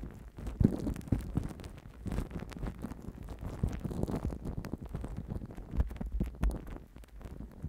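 Fingers patting and tapping a microphone wrapped in plastic cling film and smeared with white cream, right on the mic: close, irregular crackling and soft thumps, several a second, with a couple of louder pats about a second in and near the end.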